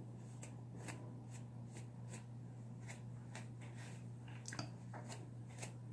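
Bristle brush stroked repeatedly through a beard: faint, short scratchy swishes about twice a second, over a steady low hum.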